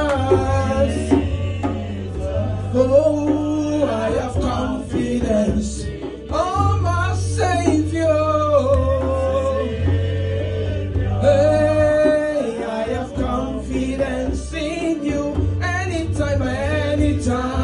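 A woman singing a gospel worship song into a handheld microphone, over instrumental accompaniment with a steady bass line.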